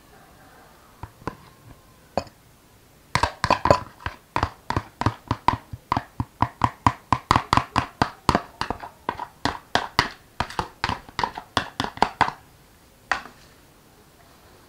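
Metal spoon knocking and scraping against a plastic blender jug and a mesh sieve to get thick blended pulp out, a quick run of sharp knocks at about three or four a second that starts about three seconds in, stops about twelve seconds in, and is followed by one last knock.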